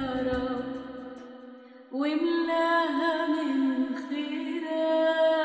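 A woman singing unaccompanied in long, held notes. She starts about two seconds in, after the previous music fades away.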